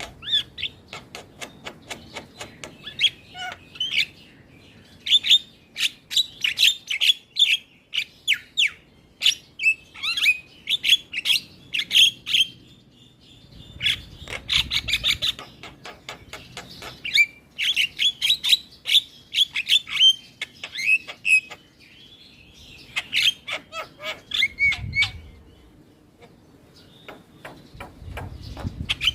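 Javan myna singing in long runs of rapid chirps, clicks, whistles and harsh squawks, broken by short pauses. A low rumble sits under the song twice.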